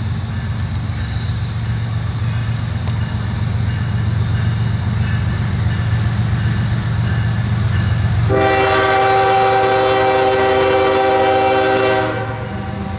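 Diesel locomotives of a loaded ballast train rumbling steadily as they approach. About eight seconds in, the lead locomotive sounds one long horn blast of several tones together, lasting about four seconds and ending suddenly.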